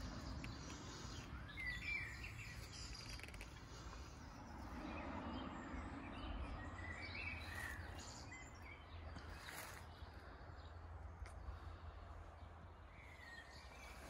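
Quiet woodland ambience: a few brief, scattered bird chirps over a low, steady background noise.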